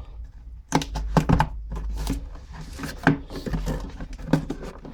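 Irregular clicks and knocks of a snap ring pliers set's tool case and packaging being handled and opened.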